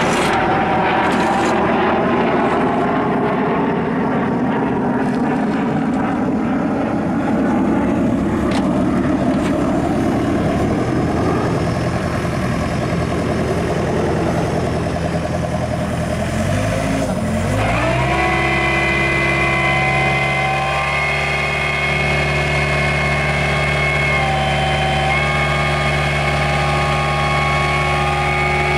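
Volvo EW55 wheeled excavator's diesel engine and hydraulics running under load. About two-thirds of the way through, the pitch rises and settles into a steady hum of several tones as the raised wheels are driven and spin freely in the air.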